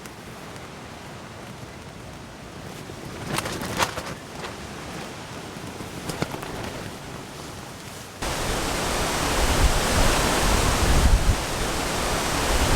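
Steady outdoor rushing noise with a few faint clicks. About eight seconds in, it cuts abruptly to a much louder rush of strong, gale-like wind buffeting the microphone.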